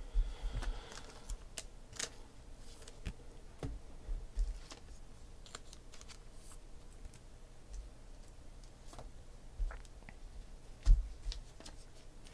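Football trading cards being handled and set down on a table: scattered light clicks and taps of card stock, with a louder knock about eleven seconds in.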